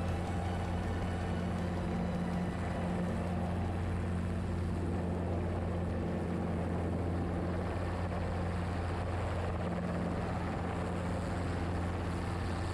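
Helicopter in low flight, heard from on board: a steady, unbroken drone of rotor and engine with a deep hum underneath.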